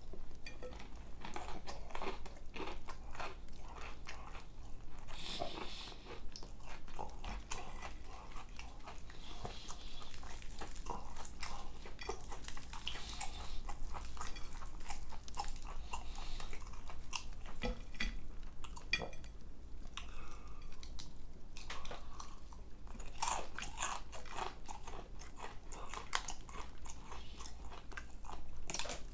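Close-miked eating: a person biting and chewing crispy fried chicken, a continuous irregular run of crunches and crackles.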